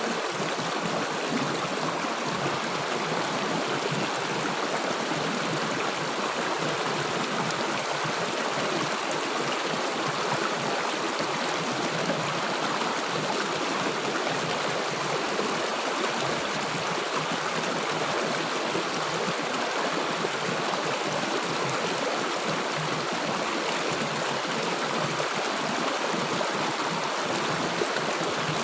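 River water rushing and gurgling in a steady, unbroken flow.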